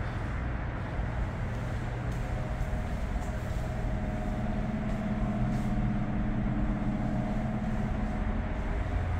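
Steady low hum of running machinery, with a faint droning tone that grows stronger about four seconds in.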